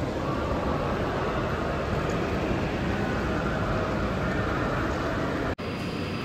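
Steady outdoor city ambience at a station forecourt: a continuous wash of traffic and open-air noise. Near the end it cuts abruptly to a different, steady station background carrying a faint high whine.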